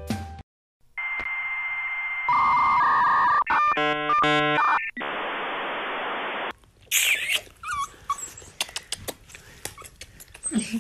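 Dial-up modem connection sound dubbed in as a 'reset' effect: a steady high tone, warbling screeches and a burst of hiss that cuts off sharply. Then a small dog whimpering and yipping in short, irregular sounds.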